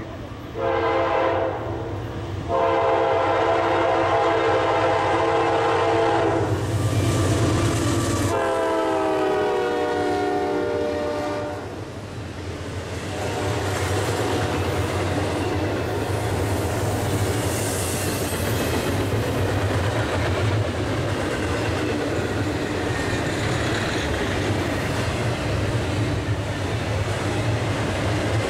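Locomotive air horn sounding a short blast and then a long one, its chord of several tones dropping in pitch as the locomotive passes. Then the steady rumble and clickety-clack of the train rolling by.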